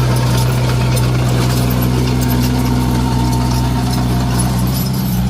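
Komatsu D21A bulldozer's diesel engine running at a steady speed, a loud low hum.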